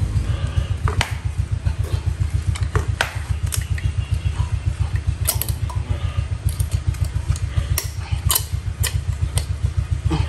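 Sharp clicks and ticks of steel wire being bent in a wooden jig and handled, over a steady low throbbing drone from a running machine that pulses about five or six times a second and is the loudest sound throughout.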